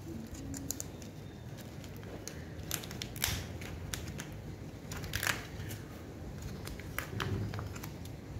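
Clear plastic of a waterproof phone pouch crinkling and rustling as it is handled, with scattered small clicks and two louder rustles about three and five seconds in.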